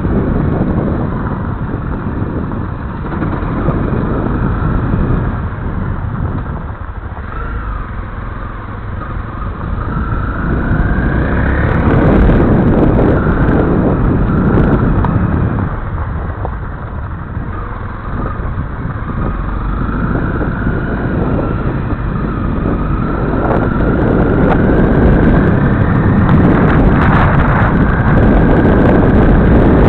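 Honda CRF250L's single-cylinder four-stroke engine running under way. It eases off twice and then climbs in pitch as the throttle opens.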